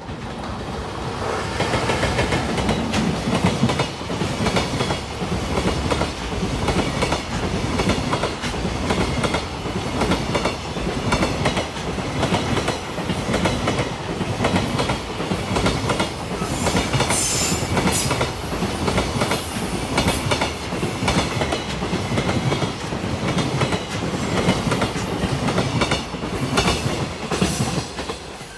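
A long JR Freight train, hauled by an EF210 'Momotaro' electric locomotive, passing close by. Its wagons' wheels clatter steadily over the rail joints. The sound builds over the first couple of seconds and falls away right at the end.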